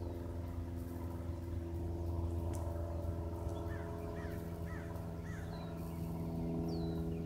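Cessna light aircraft engine droning steadily in flight. Around the middle, a bird gives four short calls in quick succession.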